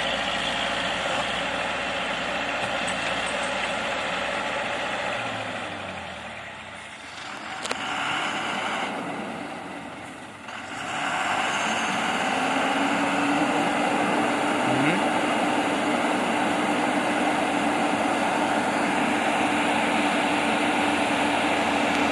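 Heavy diesel vehicle engine idling steadily. It fades for a few seconds about a third of the way in, with a single sharp click, then comes back louder with a steady hum.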